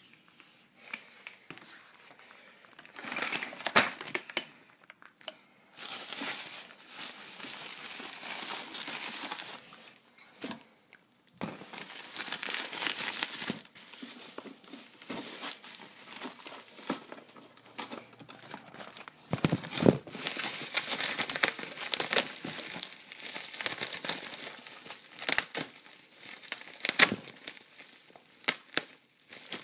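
Packaging being handled and crinkled while 3D printer parts are unwrapped, in irregular rustling bursts with sharp clicks now and then.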